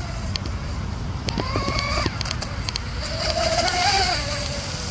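Twin brushless motors of an RC speedboat (Rocket 3670 1850kV) whining at speed as the boat runs past, the whine rising and falling in pitch. Wind rumbles on the microphone throughout.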